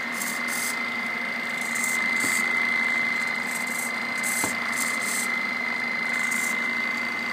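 Small electric motor of a homemade RC boat spinning its propeller at about half throttle in a water-filled cooler: a steady high-pitched whine over the churning water, with short bursts of higher hiss now and then.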